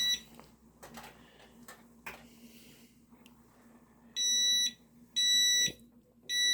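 Power wheelchair's reverse warning beeper sounding while the chair backs up: identical high-pitched beeps, one at the very start and then three about a second apart from about four seconds in. Faint knocks in the quiet between.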